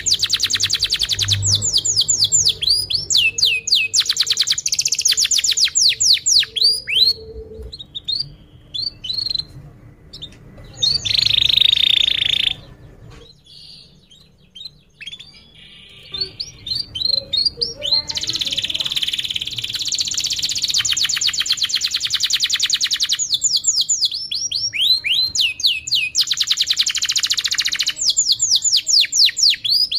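Domestic canary singing a long, fast song of rapid trills and runs of quick repeated high chirps. It breaks off briefly about halfway through, then starts again.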